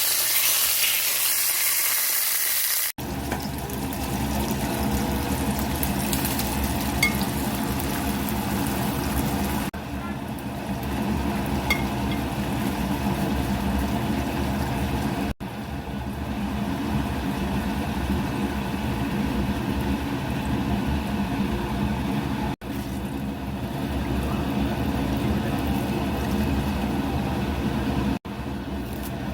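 Food frying and sizzling in a pan: a bright, hissing sizzle for the first three seconds, then a lower, steadier cooking sound across several edit cuts.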